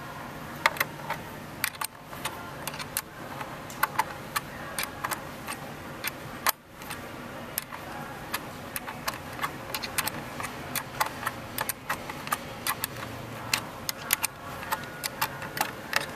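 Small plastic parts and a fitting being handled by fingers, giving irregular light clicks and rattles, several a second, as the part is worked into place.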